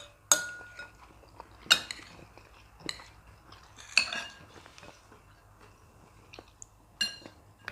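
Metal cutlery clinking against plates while eating: about six separate clinks spread over the few seconds, a couple of them leaving a short ring.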